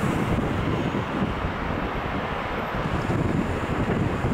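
Wind buffeting the microphone over a steady low rumble of airport vehicle noise.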